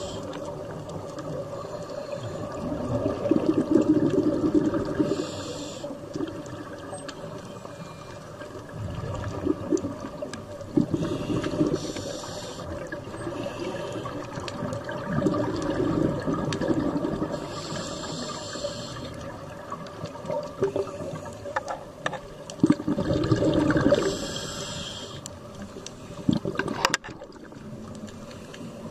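A scuba diver breathing underwater through a regulator, about every six seconds: a hissing draw on each breath in, then a low rush of exhaled bubbles. A sharp click comes near the end.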